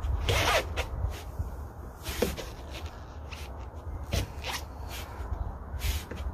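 Sneakers scuffing and pivoting on a wooden deck during footwork: a few short scrapes, about two seconds apart, over a steady low rumble.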